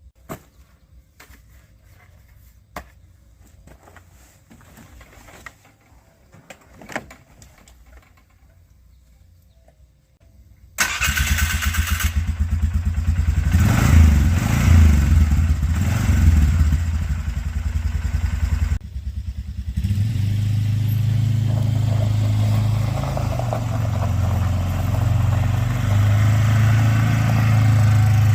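After a quiet stretch with a few small clicks, a vehicle engine starts suddenly about eleven seconds in, revs briefly, dips for a moment, then runs steadily.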